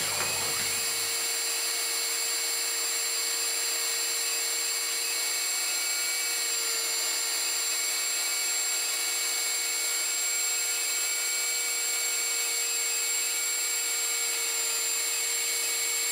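Router spindle on a homemade CNC machine running at speed with a half-inch end mill surfacing the MDF spoilboard, a steady whine with the dust-collection vacuum drawing through the skirt.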